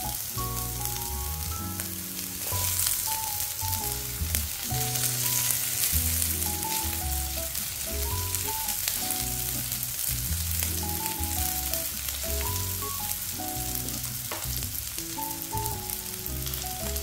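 Sliced shallots and minced garlic sizzling in hot oil in a wok, stirred now and then with a spatula. A steady hiss of frying runs under background music with a stepping melody.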